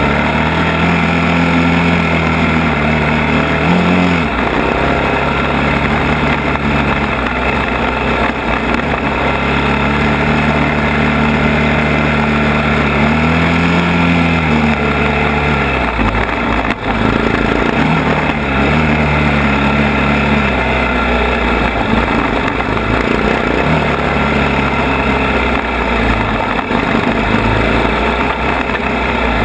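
ATV engine running under changing throttle as it climbs a rough trail, its pitch rising and falling several times, with steady rushing noise over it. One sharp knock about two-thirds of the way through.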